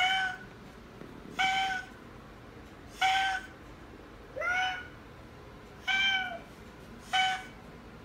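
Oriental Shorthair cat honking instead of meowing: six short honks in a row, about one every second and a half, each held at a steady pitch.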